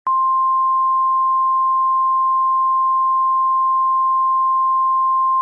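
Emergency alert attention tone: a single steady electronic tone just above 1 kHz that switches on abruptly and holds without change.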